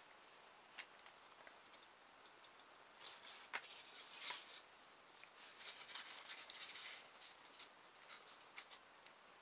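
Faint scratchy rustling and small clicks of hands handling and cutting polystyrene-plate rotor strips. The rustling comes in two louder patches a few seconds in, with scattered clicks between.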